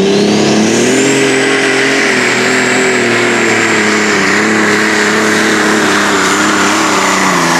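A pulling tractor's engine running hard under load as it drags the sled down the track. The note holds steady with small dips, over a high whine that climbs in the first second and then holds.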